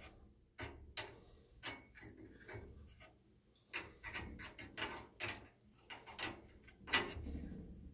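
Small metal clicks and taps as screws and parts are handled and fastened at the pilot burner assembly of a Bosch AquaStar tankless gas water heater. A dozen or so come at uneven intervals, the louder ones in the second half.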